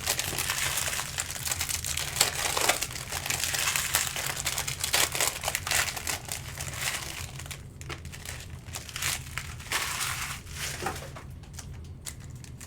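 Trading-card pack wrappers crinkling and rustling as packs are torn open and the cards handled. The crinkling is busiest over the first seven seconds and thins out after that, over a faint steady hum.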